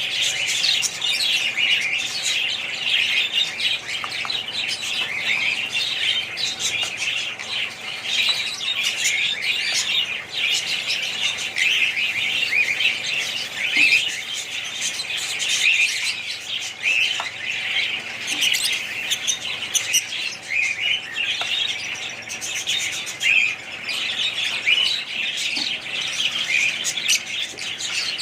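Many small birds chirping and chattering together, a dense, unbroken mass of overlapping high calls.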